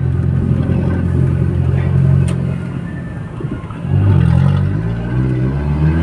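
Audi A3 turbo car engine running steadily while driving. It eases off briefly about halfway, then pulls again with its pitch rising near the end as the car accelerates. A short click sounds about two seconds in.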